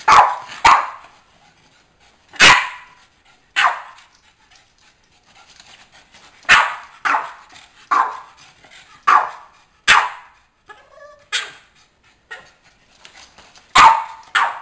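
Boston terrier barking: about a dozen short, sharp barks, singly and in quick pairs, with pauses of a second or more between them.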